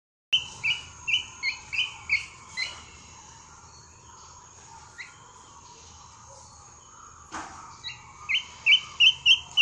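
Young chick peeping in quick runs of short, high peeps. About seven come in the first two and a half seconds and another run near the end, with a single soft knock in between.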